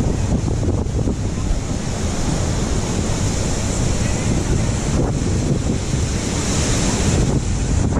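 Typhoon Jebi's strong wind blowing hard and buffeting the microphone in a dense, steady rush.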